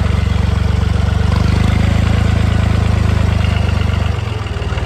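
A vehicle engine idling steadily and close by. It eases off slightly about four seconds in and cuts off suddenly at the end.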